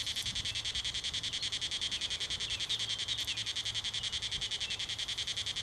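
Insects trilling in a steady, fast, even pulse that does not let up.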